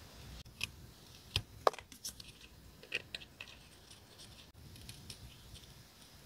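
Short, sharp snips and clicks of hands working paper and stickers at a desk. They come in a quick irregular string, most in the first four seconds, the loudest about one and a half seconds in, with a few fainter ones later.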